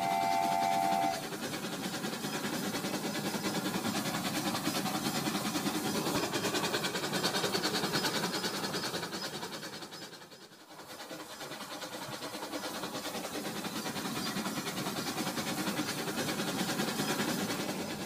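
A toy train sounds a short electronic multi-tone horn right at the start, then its motor and wheels run steadily along plastic track with a constant fine clatter. The running noise fades briefly about ten seconds in and then picks up again.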